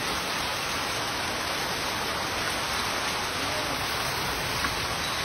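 Heavy hail pouring down on the ground, roof and tree leaves: a dense, steady hiss of countless stones striking, with no let-up.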